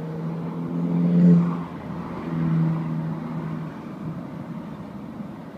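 A steady engine hum at one pitch, swelling twice, about a second in and again around two and a half seconds, then fading into a low background rumble.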